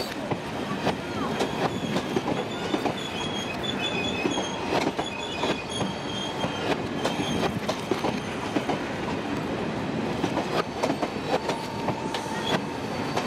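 Garib Rath passenger coaches rolling slowly past during shunting, their wheels clicking over rail joints. High squeals come and go in the first half, and a short steady squeal tone sounds near the end.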